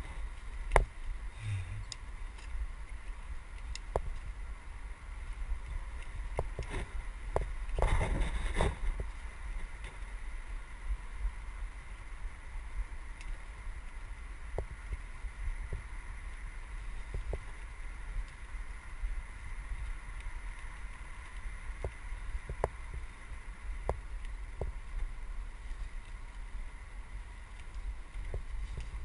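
Mountain bike riding over a dirt forest singletrack, heard through a helmet-mounted GoPro: a steady low rumble with wind on the microphone and scattered clicks and knocks from the bike over bumps, with a louder rattling burst about eight seconds in.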